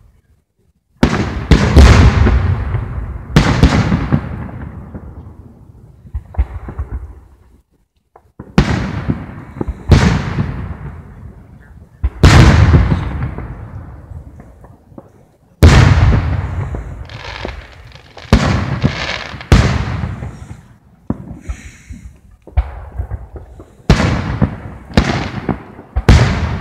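Aerial fireworks shells bursting overhead: more than a dozen sharp booms, each followed by a long rolling echo that fades away. They come in clusters with short lulls between.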